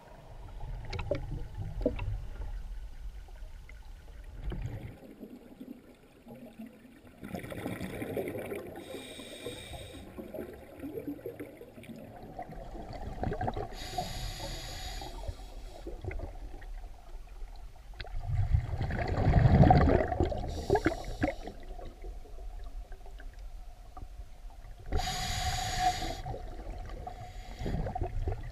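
Scuba diver breathing through a regulator underwater: a hissing inhalation every five or six seconds, and rumbling, bubbling bursts of exhaled air.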